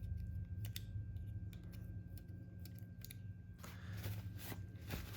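Blade of a small Zippo money-clip folding knife being worked open and closed, its freshly oiled hinge clicking several times at irregular intervals. Handling rustle in the last second and a half, over a steady low hum.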